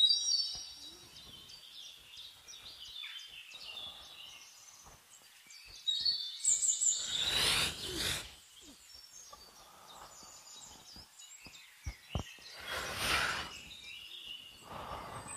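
Wild birds chirping and calling in a forest, with two long rushing sounds, each about two seconds, from about six and about twelve and a half seconds in.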